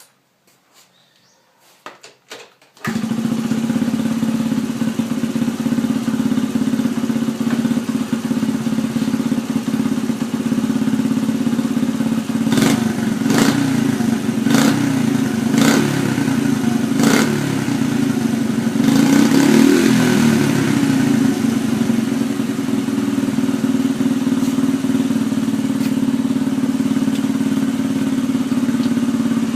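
Motorcycle engine and exhaust catching suddenly about three seconds in after a few small clicks, then idling steadily. About six short throttle blips come between roughly 12 and 17 seconds, and a longer rev follows around 20 seconds before it settles back to idle.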